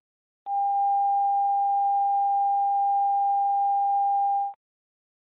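Line-up test tone played with colour bars at the head of a broadcast tape: one steady, unchanging pitch that starts about half a second in and cuts off abruptly after about four seconds.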